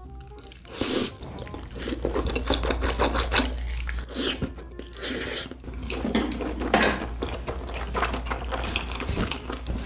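Close-miked eating sounds: wet slurps, lip smacks and chewing as food is eaten from a spicy soup. The noises come irregularly, with one of the loudest about a second in.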